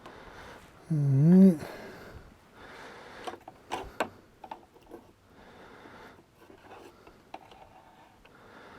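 A man's short wordless hum or grunt ("hmm") about a second in, its pitch rising and then falling, followed by faint breathing and a few light clicks.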